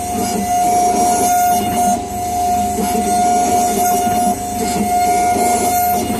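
Dental crown milling machine grinding a crown from a block under a water spray: a steady high whine over a rough grinding noise.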